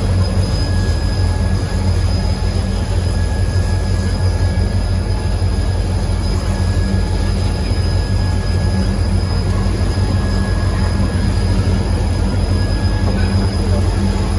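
Freight train of tank cars rolling past in a steady low rumble, with a thin steady high squeal from the wheels on the rail.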